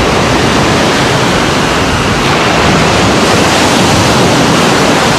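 Ocean surf: a loud, steady rush of breaking waves with no distinct wave-by-wave rise and fall.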